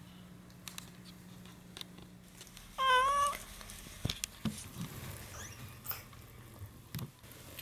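A domestic cat gives one short meow-like cry about three seconds in, lasting about half a second with a slightly wavering pitch. A few faint clicks and knocks follow.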